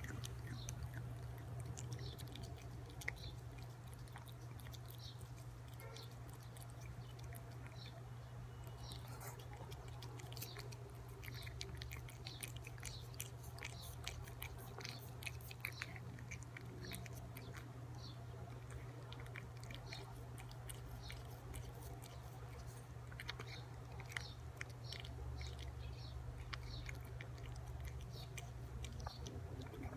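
A cat lapping yogurt from a plastic spoon at close range: a steady run of small wet tongue clicks and smacks, over a low steady hum.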